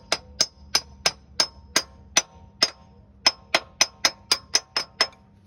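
Hammer blows on a metal seal-driver cup, driving a new extension housing seal into the automatic transmission's tail housing: about sixteen ringing metallic strikes, roughly three a second, with a short pause about two and a half seconds in.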